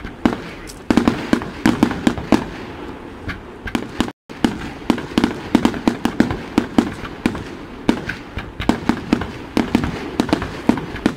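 Fireworks going off overhead in quick succession: a rapid, irregular string of sharp bangs and crackles. The sound cuts out for a moment about four seconds in.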